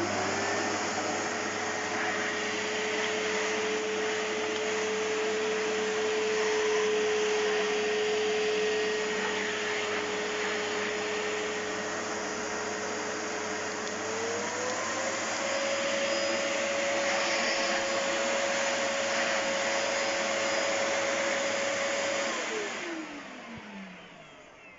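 Polaris PVC 2003RI bagless vacuum cleaner's motor running steadily with a whine; about two-thirds of the way through the pitch steps up and holds. Near the end it is switched off and winds down, the whine falling away.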